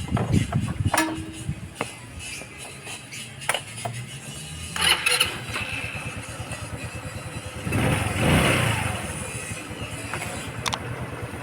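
Rusi Gala 125cc scooter engine starting on one press of the electric starter and running, with a brief swell in engine sound about two-thirds of the way through. The easy start follows resetting the carburetor needle clip to position 6, which cured its hard starting.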